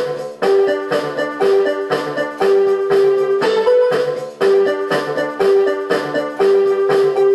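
Background music: a repeating keyboard melody with a steady beat of about two notes a second.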